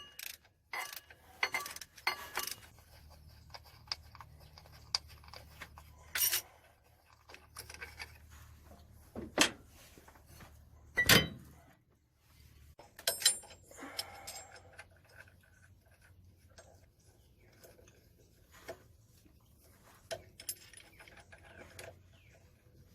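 Hand tools and loose metal engine parts being handled: scattered metallic clinks and clatter with a few sharp knocks, the loudest two about nine and eleven seconds in.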